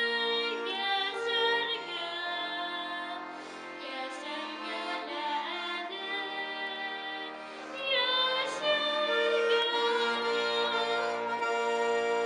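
A girl singing a Bashkir song, her held notes wavering with vibrato, accompanied by a button accordion (bayan) sustaining steady chords beneath her.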